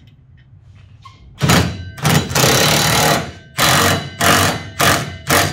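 Impact wrench running in bursts, tightening the mounting bolt of a new Belltech rear shock absorber: one run of nearly two seconds, then four short bursts.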